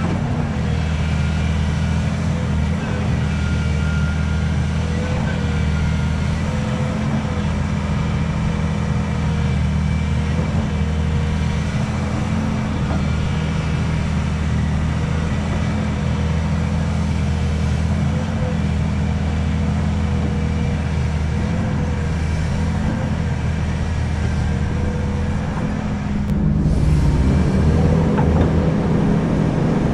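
Hydraulic excavator's diesel engine running steadily under working load. Near the end it grows louder and its pitch shifts as the machine takes more load.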